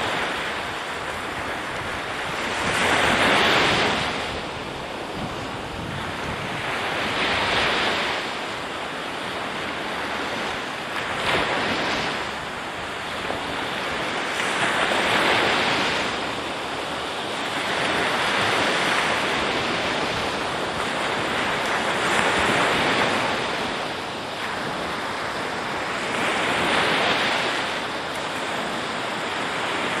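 Ocean surf: waves breaking on a shore in slow swells about every four seconds, with a steady wash of water between them.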